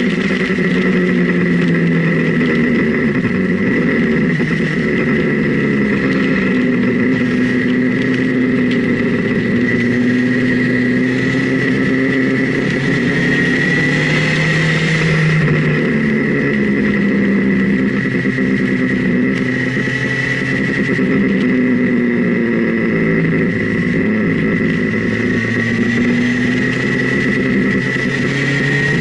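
Motorcycle engine recorded from a camera mounted on the bike, its pitch rising and falling over and over as the rider opens and closes the throttle through a run of bends, with wind rush and a steady high whine throughout.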